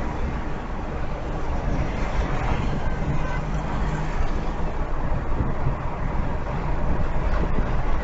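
Steady driving noise of a car on the road: low tyre and road rumble with a faint engine hum, heard from inside the car through a dashcam.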